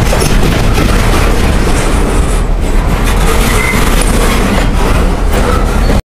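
Steel wheels of a freight train's last car, a loaded flatcar, rolling past on the track: a loud, steady rumble.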